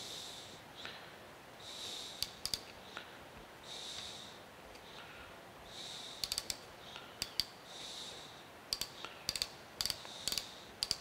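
Ratchet thimble of a bore micrometer clicking as it is turned to seat the anvils in a bronze bearing bushing to measure its bore. Short runs of sharp clicks, a pair about two seconds in, then more often from about six seconds on.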